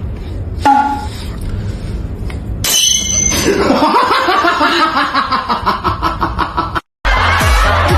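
People laughing and talking, louder from about three seconds in, then a sudden cut to music with a heavy beat near the end.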